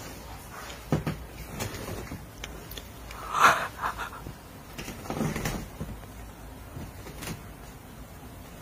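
A cat clawing and tearing at the torn padding of a mattress edge: irregular scratching, ripping and light knocks against the bed frame, loudest in a short rip about three and a half seconds in.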